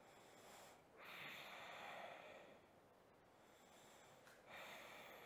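Faint breathing of a person holding a yoga pose: one long breath about a second in, and another beginning near the end.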